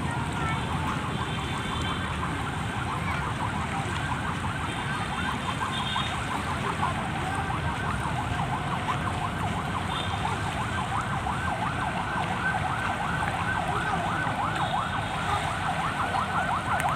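A siren wailing, its pitch sweeping rapidly up and down without a break, over a steady low rumble of wind and water.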